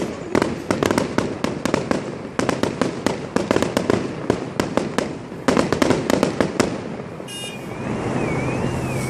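Fireworks going off in a rapid barrage of sharp bangs and crackles, which stops about seven seconds in. Then a warbling electronic tone, like a car alarm or siren, starts up over a low hum.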